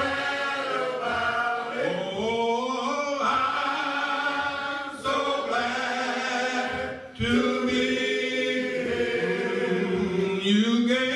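Men's church choir singing a gospel song, with long held notes and a short break about seven seconds in.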